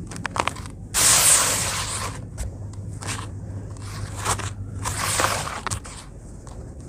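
A hand raking, scooping and crumbling dry, lumpy cement powder in a plastic tub: gritty crunching and scraping in several bursts, the loudest and longest about a second in.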